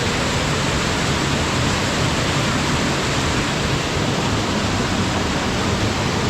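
Waterfall: water falling and splashing in a loud, steady rush.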